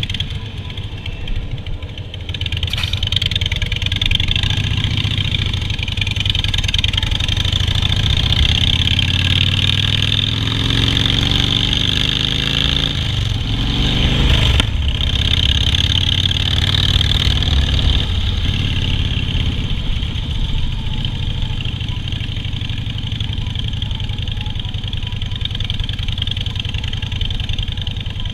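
Harley-Davidson Softail Standard V-twin engine under way. It climbs in pitch while accelerating, breaks off briefly about halfway for a gear change, then settles into a steady run.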